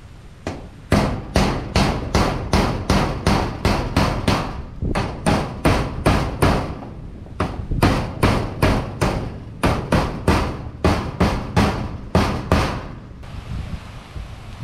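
Hammer driving nails with quick, even strikes about three a second, in three runs broken by short pauses; the hammering stops near the end.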